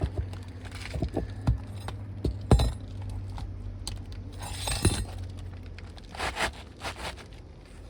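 Asphalt 3-tab shingles scraping and crackling as a new shingle is slid up under the lifted course above, with scattered clicks and knocks where it catches on leftover nails. The sharpest knock comes about two and a half seconds in.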